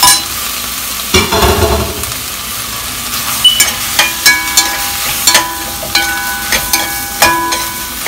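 Brussels sprouts sizzling in butter and sauce in a white ceramic-coated pot as a metal utensil stirs them. The utensil clinks and scrapes against the pot many times, each clink ringing briefly, with a louder scrape a little over a second in.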